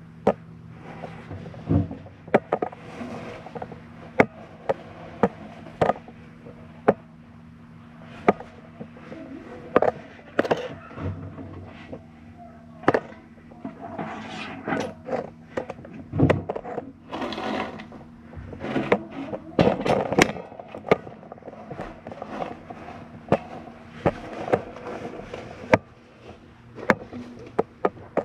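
Irregular knocks, taps and scrapes against the rusted metal inside a fireplace firebox, over a steady low hum.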